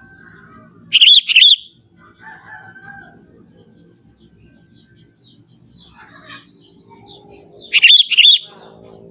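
Sooty-headed bulbul (kutilang) giving a loud, bubbling, wavering call twice, about a second in and again near the end, with fainter bird chirps in between.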